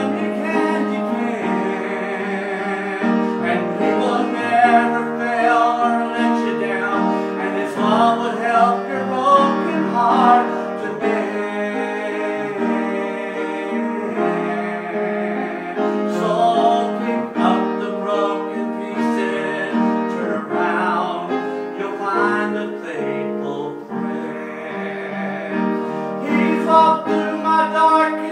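A man singing a hymn while accompanying himself on an upright piano, his held notes wavering with vibrato.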